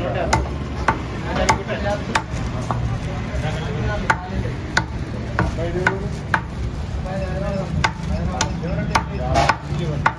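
Heavy steel cleaver chopping a country chicken into pieces on a round wooden chopping block. Sharp chops land every half second to a second, with a short pause about two thirds of the way through.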